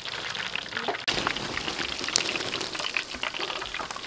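Chicken wings deep-frying in a wok of hot oil: a steady, crackling sizzle of many small pops. It cuts out for an instant about a second in, then goes on slightly louder.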